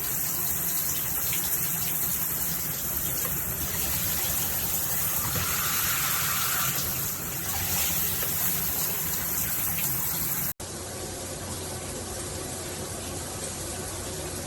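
Water spraying from a HammerHead all-metal dual shower head at high flow, a steady hiss. About ten and a half seconds in it cuts off abruptly and a fainter steady hiss follows.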